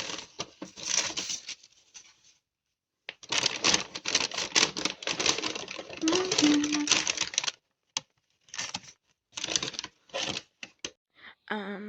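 Takeaway food packaging rustling and crinkling as it is handled, in several bursts with short pauses.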